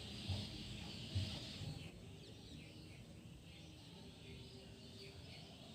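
Faint background of birds chirping, with a couple of soft low thumps in the first second or so.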